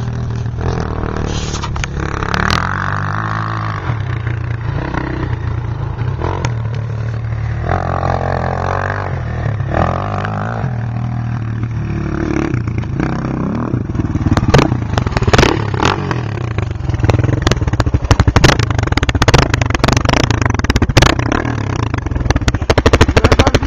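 Suzuki LT-Z400 quad's single-cylinder four-stroke engine running loud through a Yoshimura exhaust. From about halfway on, sharp cracks and pops break in, getting thicker and coming in rapid volleys near the end.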